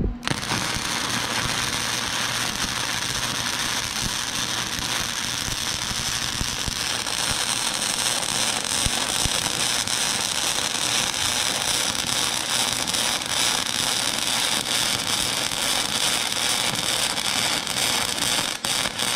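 Self-shielded flux-cored wire welding arc crackling and sizzling steadily as a bead is run across a gap in steel, spitting spatter. The arc strikes right at the start and runs with only a brief break near the end.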